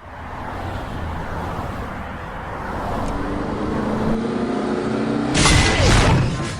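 A car engine sound effect runs and revs, its pitch rising. About five seconds in, a loud, noisy crash sound effect lasts about a second.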